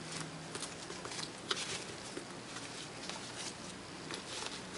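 Double satin ribbon being tied into a bow around a paper-covered box: quiet rustling and sliding of the ribbon, with scattered small ticks as the hands handle the box.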